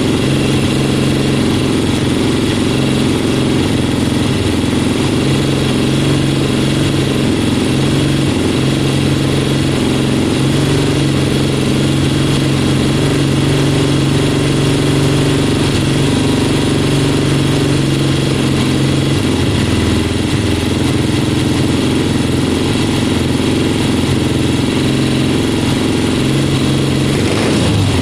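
1973 Triumph Bonneville T120's 650 cc parallel-twin engine running steadily at idle as it warms up on its first run with newly fitted Wassel carburettors, with a short rev of the throttle near the end.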